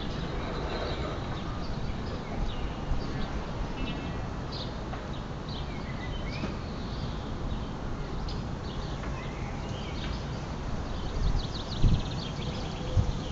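Outdoor ambience of small birds chirping in short scattered calls over a steady low rumble, with two brief low thumps near the end.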